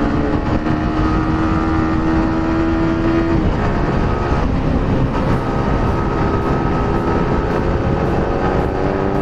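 Yamaha R15 V4 motorcycle under way: heavy wind rush on the microphone over the 155 cc single-cylinder engine. The engine's pitch climbs slowly, then drops away about three and a half seconds in before running steady.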